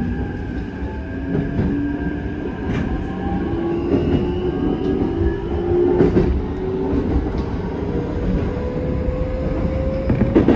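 Keikyu 1000 series electric train accelerating: the whine of its traction motors and inverter climbs steadily in pitch, over the rumble of the running gear and a few sharp rail-joint clicks.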